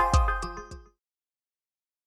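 The closing notes of a TV channel's logo jingle: bright ringing notes over a deep bass hit, fading out and ending about a second in, then silence.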